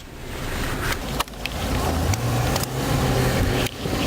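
Car engine pulling away and picking up revs, heard from inside the car, with a few short knocks and clicks along the way.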